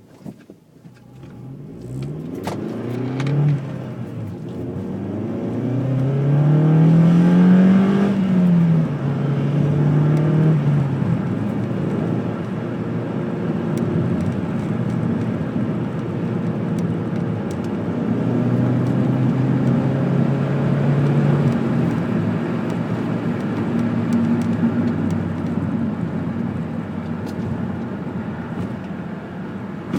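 Car engine revved several times: the pitch climbs to a peak about eight seconds in and falls back, and it is held raised for a few seconds twice, settling to a steady run in between.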